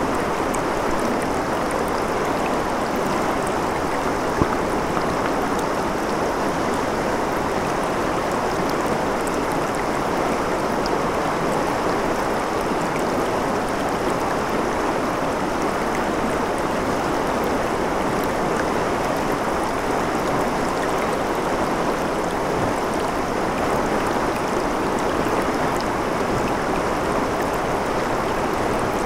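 Shallow river running over rocks in a steady, even babble of rippling water. A single brief click sounds about four seconds in.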